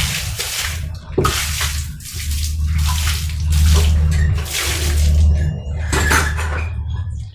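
Water being scooped from a concrete water tank with a bucket and poured out onto a tiled floor: several splashing pours about a second apart, over a steady low hum.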